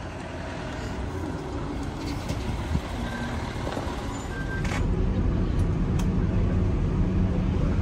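Bus engine running as a route bus pulls in, then, from about five seconds in, a louder, heavier rumble heard from inside the bus cabin as it drives.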